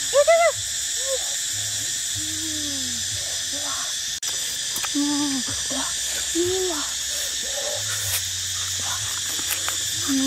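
Steady high-pitched drone of forest insects, with short hooting calls that rise and fall in pitch, several of them spaced a second or more apart; the loudest comes right at the start.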